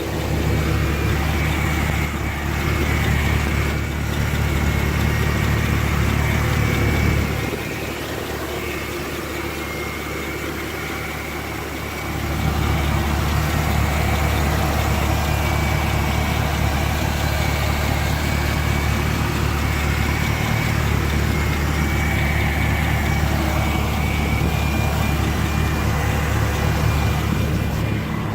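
Car engine idling steadily with a tick or rattle that the owner questions as lifter tick, on oil freshly changed to 5W-30 full synthetic. The sound drops in level for a few seconds in the middle, then comes back up.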